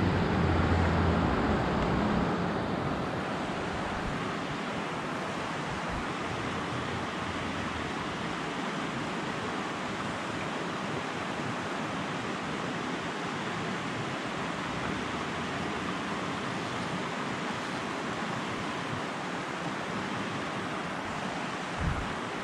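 Steady rushing of a small creek's flowing water over a riffle. A heavier low rumble sits under it for the first couple of seconds.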